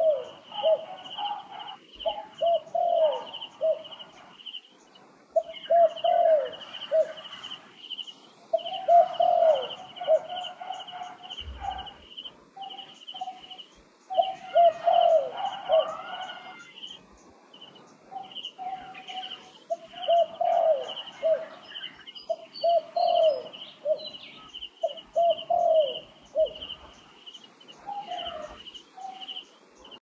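Spotted dove cooing, repeating its phrase every few seconds, over a steady high pulsing buzz.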